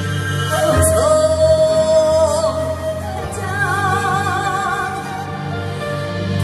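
Trot-style song music from a live performance. A held melody line slides up into its note about a second in and wavers with vibrato later on, over a steady low accompaniment.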